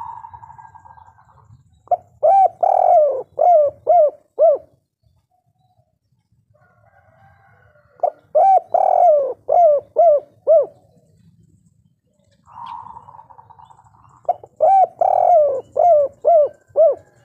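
A spotted dove cooing three song phrases, each a rapid string of about six short arched notes, in the 'kuk 3' song type as hobbyists call it. A short buzzy sound comes just before the first and third phrases.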